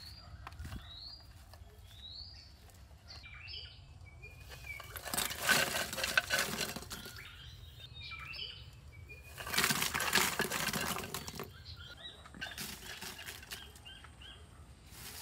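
Two bursts of rustling, scraping noise, each about two seconds long, with birds chirping before and between them.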